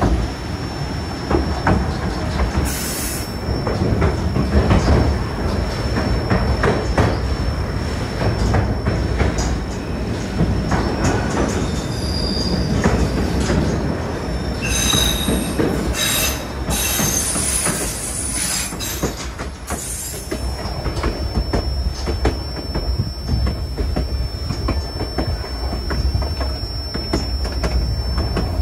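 Narrow-gauge train cars rolling over the track, with a steady low rumble and irregular wheel clatter. The wheels squeal shrilly against the rails for several seconds around the middle.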